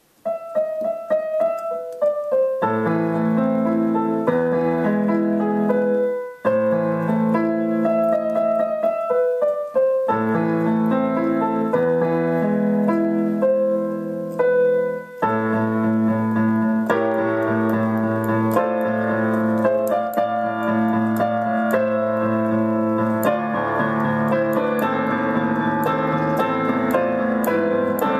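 Digital piano played with both hands: a melody starts at once and a lower left-hand bass part joins a couple of seconds in. The playing breaks off briefly twice, then grows denser and fuller through the second half.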